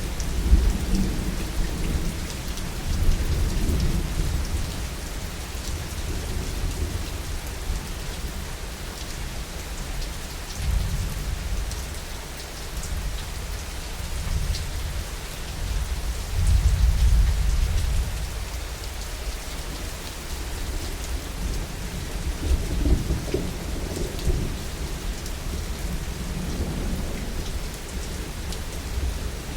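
Heavy, steady rain with rolling thunder. The rumbles swell and fade under the rain, loudest for a couple of seconds about halfway through and again a few seconds later.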